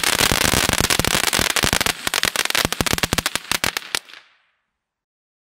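Great Grizzly Puppy Fountain firework's crackling chrysanthemum effect: a dense crackle of many small pops that thins to separate pops after about two seconds and dies out about four seconds in.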